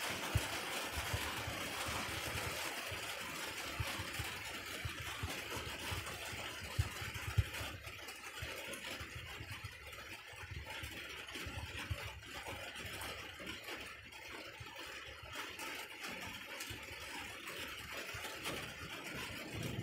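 Approaching rainstorm: an even hiss of rain and wind, with irregular low rumbles and thumps underneath.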